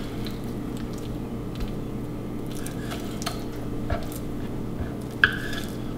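A knife slicing raw turkey on a wooden cutting board: soft, squishy cuts with a few light taps of the blade on the board, the sharpest a little after five seconds, over a steady low hum.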